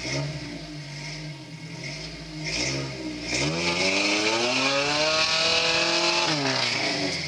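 Lifted rock-crawler pickup's engine revving under load as it works over a rock ledge. It gives a couple of short blips in the first three seconds, then climbs steeply in pitch at about three and a half seconds, holds high for about three seconds, and drops back near the end.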